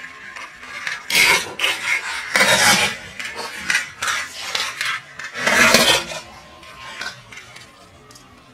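Small plastic toy trucks cracking and crunching as a car tyre rolls over them, with three loud bursts of splintering plastic about a second in, around two and a half seconds, and around five and a half seconds, and smaller crackles between.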